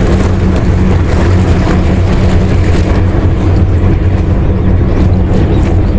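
A motor running with a steady, unchanging low drone and hum.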